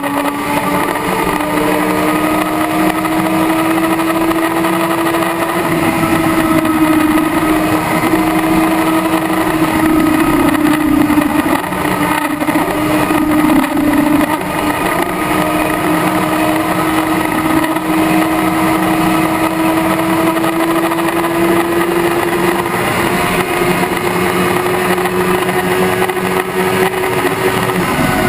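Kawasaki ZX-10R's inline-four engine pulling hard in sixth gear at very high speed, its note rising slowly and steadily as the bike accelerates, over heavy wind rush. The note dips slightly right at the end.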